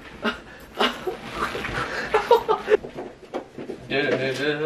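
A man's voice making short sounds and laughter, without clear words, while he plays with a goldendoodle. Near the end a voice holds one steady note.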